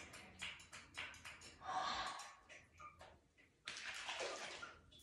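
A hairbrush dragged through long hair in repeated strokes: light scratchy clicks and rustling, with a longer swish about two seconds in and another near four seconds.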